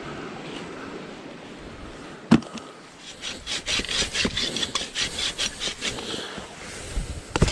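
Wood being sawn by hand in quick back-and-forth strokes, about three to four a second, for a few seconds. A single sharp knock of wood comes shortly before the sawing starts.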